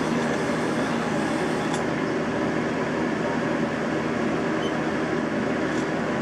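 Steady mechanical running noise of a Haas CNC machine, an even rumbling hum with no change in level.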